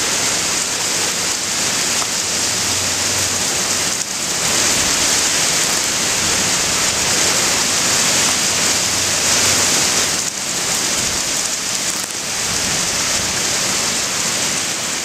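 Heavy hurricane rain pouring down steadily, swelling a little about four seconds in.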